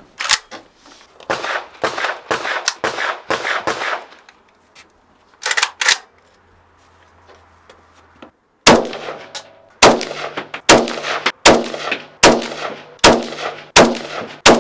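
Kalashnikov AK-47 rifle firing 7.62×39 mm rounds: a quick run of shots over the first few seconds, two more, a pause of about three seconds, then a steady string of single shots a little under a second apart. Each shot has a sharp crack and a ringing tail.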